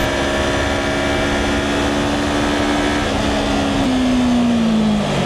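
Motorcycle engine running with wind and road rush. Its note holds steady, steps down twice, then slides lower over the last second or so as the bike slows.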